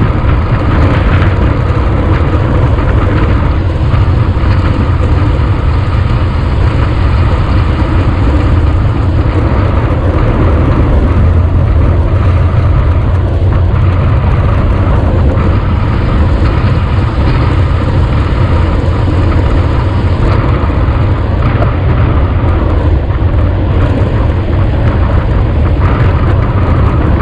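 Steady, loud wind rush over the microphone of a handlebar-mounted camera on a road bike riding at about 50–56 km/h, with tyre noise on asphalt beneath it.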